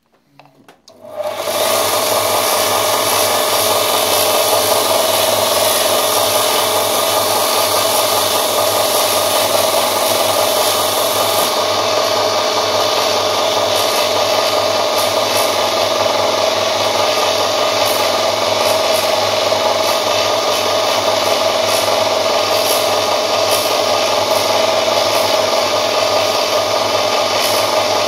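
Workzone bench polisher with a buffing wheel switched on about a second in. Its motor spins up quickly and then runs with a steady, loud whir and hum.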